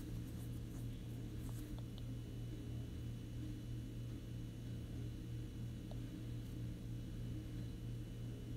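Steady low electric hum of an industrial overlock sewing machine's motor running.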